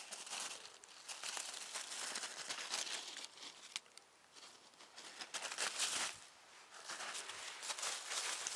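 Dry fallen oak leaves rustling and crackling in bursts as they are disturbed, with a quieter spell near the middle.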